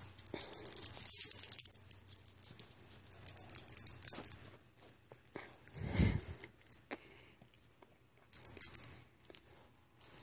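Metal tag on a dog's collar jingling in bursts as the excited dog jumps and wriggles against the phone, with a dull thump about six seconds in.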